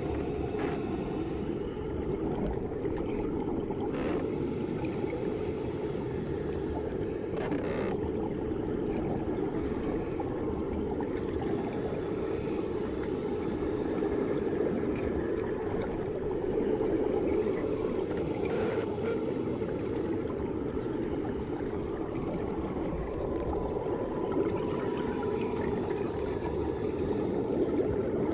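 Swimming-pool water heard underwater: a steady, muffled rumbling wash, with a few brief clicks as the water is stirred.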